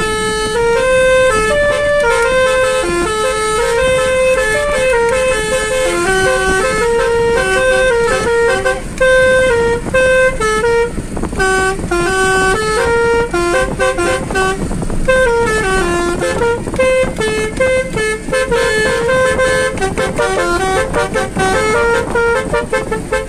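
Basuri musical air horns on the car playing a fast tune note by note from a small keyboard, heard from inside the cabin.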